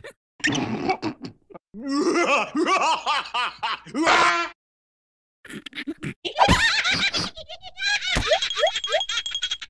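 Cartoon larva characters laughing in squeaky, gibberish cartoon voices, in two bouts with a second-long pause between them. A short noisy burst comes before the first bout, and quick rising squeaks come near the end.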